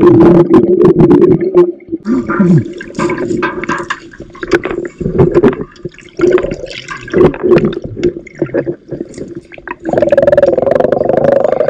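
Water churning and gurgling close to the microphone. It is loud and continuous at first, breaks into irregular splashes after about two seconds, and becomes a steady rush again near the end.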